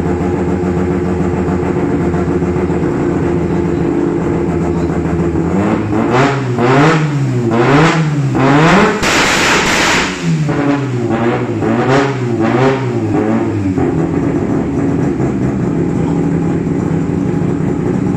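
Turbocharged Mazda engine in a Nissan Champ 1400 bakkie idling, then revved up and down in quick repeated blips from about six seconds in, with a harsh rushing burst of about a second near the middle. It settles back to a steady idle about fourteen seconds in.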